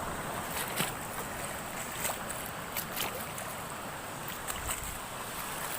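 Sea surf and wind on the microphone as a steady wash, with a few sharp clicks or knocks scattered through it.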